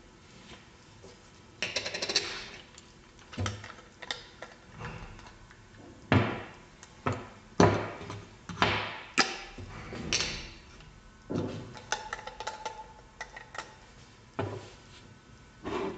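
Irregular knocks, clicks and short scrapes of a stainless steel manual salt and pepper grinder's body, caps and refill jar being handled and set down on a wooden tabletop.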